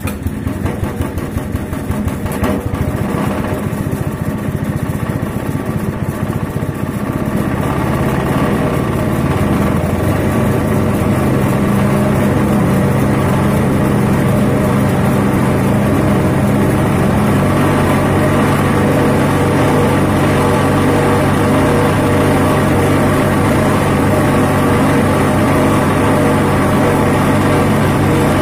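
Grass chopper machine's small engine running loud as soon as the sound begins, its speed rising over the first ten seconds or so and then holding steady.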